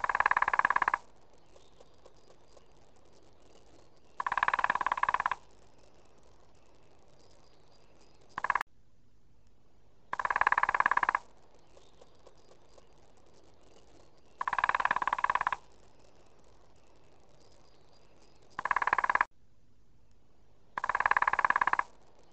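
Spotted woodpecker drumming: seven fast, even rolls, most about a second long, one very short, spaced a few seconds apart.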